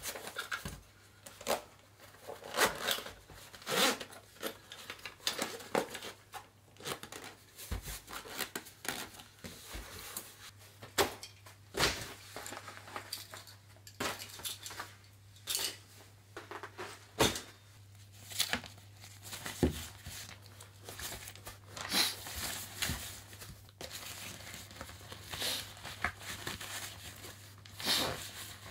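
Camping gear being handled and packed by hand: nylon stuff sacks, a tarp and a zippered pouch rustling and crinkling in irregular bursts, with a few soft knocks of items set down on a wooden floor.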